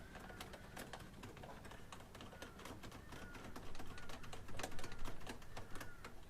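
Faint, irregular clicks and ticks of hand tools working on a car door's trim screws. A bird chirps briefly again and again in the background.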